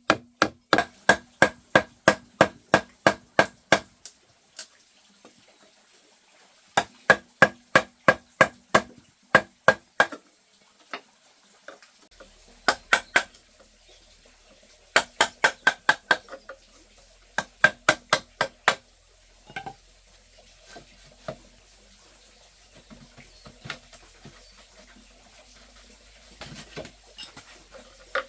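Rapid, evenly paced strikes on bamboo, about three a second, in runs of several blows with pauses between; each strike rings briefly. Later come a few scattered lighter knocks and some softer clattering near the end.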